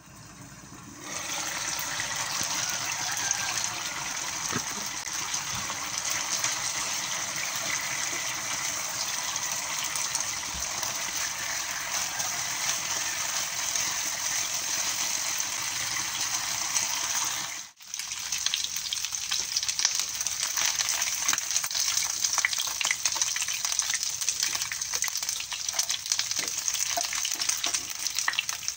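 Chicken wings sizzling and bubbling in a pan as they cook in their own juices: a steady hiss with fine crackling. It breaks off for an instant about two-thirds through and comes back with sharper crackle.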